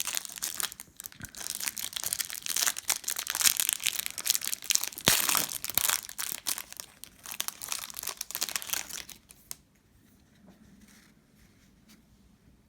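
Trading-card hanger box being torn open, its cardboard and wrapping tearing and crinkling for about nine and a half seconds before the noise stops.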